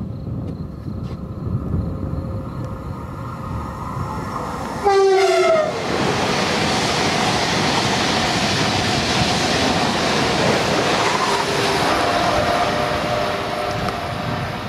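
A high-speed train on a high-speed line approaches with a building rumble and gives one short horn blast about five seconds in, its pitch sliding slightly down. It then passes close by at speed with a loud, steady rush of wheels and air that eases off slightly near the end.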